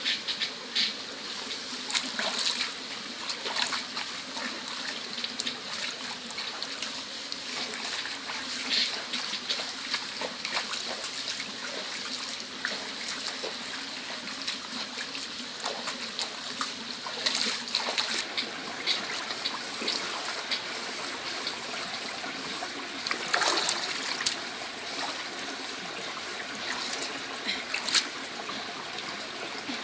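Shallow stream running over rocks, with irregular splashing and dripping as a slab of raw pork is rinsed by hand in the water; a few louder splashes stand out, one near the end as the meat is lifted dripping.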